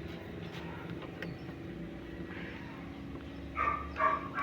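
A dog barks three times in quick succession near the end, over a steady low mechanical hum.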